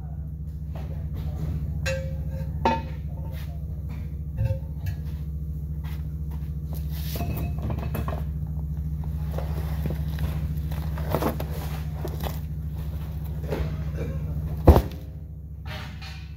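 Steady low machine hum, with scattered metal knocks and clanks from handling a truck tire on an aluminium wheel, and one loud bang near the end, after which everything is quieter.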